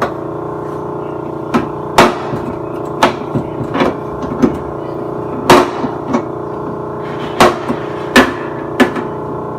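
Background music with a steady held chord, over which a dozen or so irregular sharp knocks and clatters sound, like objects being set down or handled.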